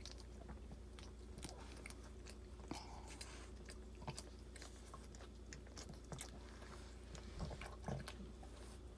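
Boston Terrier mother licking and chewing at her newborn puppies: irregular wet smacks and clicks, over a steady low hum.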